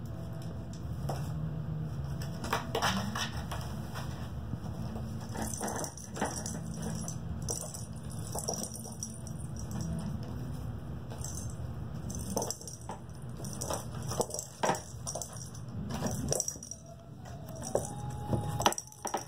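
Kittens playing with small toys: scattered light clicks and rattles, thicker in the second half, over a steady low hum.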